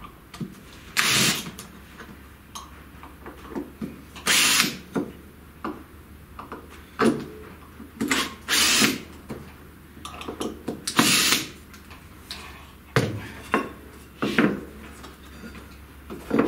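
Cordless drill-driver run in several short bursts of about half a second each, backing out the screws that hold a wooden work-holding frame down to a CNC router's spoil board, with small knocks and clatter between runs.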